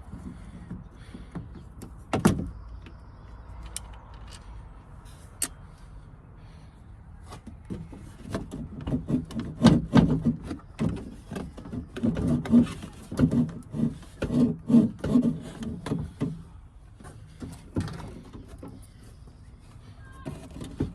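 Car interior door handle assembly being wiggled and tugged in the bare door, knocking and rattling against the door's inner metal while it stays stuck. One knock about two seconds in, then a long run of rapid knocks and rattles from about eight seconds to about sixteen seconds in.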